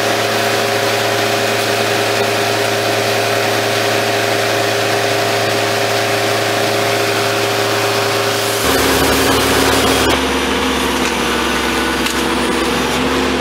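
Skid-steer loader engine running steadily while a Sawzall reciprocating saw cuts the bush's roots. About nine seconds in the engine note changes to a deeper one, and the saw stops shortly after.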